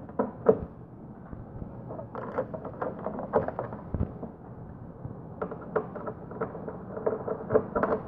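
Screws being backed out of a tennis ball machine's plastic control panel with a Phillips screwdriver: scattered small clicks and scrapes, bunching up about two seconds in and again over the last few seconds.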